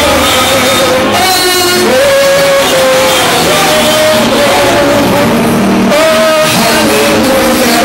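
Loud music with a held, sung melody line.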